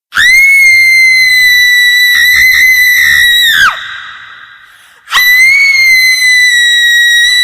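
Horror ringtone of a shrill, very high-pitched scream, held for about three and a half seconds with a brief wavering in the middle, then dropping in pitch and breaking off into a fading echo. The same scream starts again about five seconds in.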